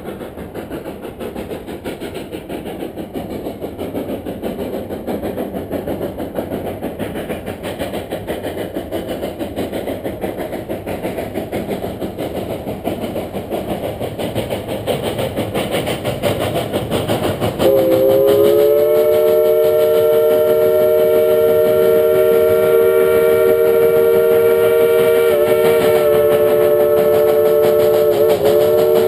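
Narrow-gauge steam locomotive coming closer: its working exhaust is a rough, pulsing rush that grows louder. About two-thirds of the way in, its steam whistle starts a long blast of several tones at once that holds to the end, dipping briefly twice.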